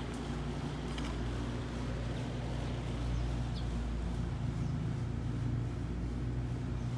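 Steady low hum of a running motor, with a short high chirp about halfway through.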